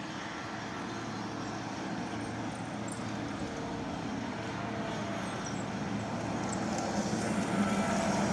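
Skid steer engine running steadily, growing louder over the second half.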